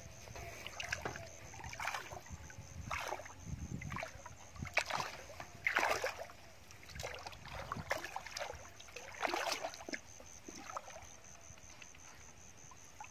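Feet wading through shallow water, splashing irregularly about once a second.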